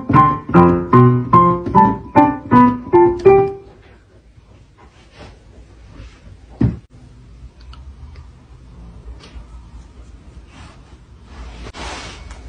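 Digital piano keys struck one after another, about three notes a second, for the first few seconds, then dying away. Later comes a single thump.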